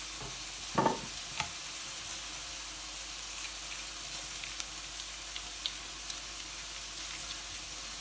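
Chicken fillets sizzling steadily in a frying pan, with a short knock about a second in.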